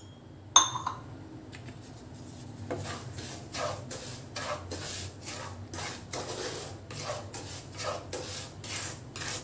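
A sharp metal clink about half a second in. Then a wooden spatula scrapes and stirs dry semolina around a non-stick pan in short strokes, about two a second, as the rava is fried in ghee.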